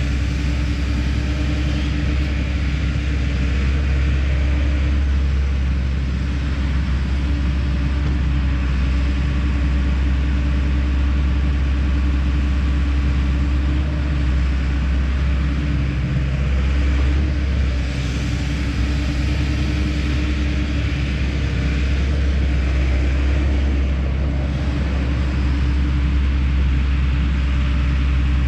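Kobelco SK210 hydraulic excavator's diesel engine running steadily, a continuous low hum with a steady higher tone over it.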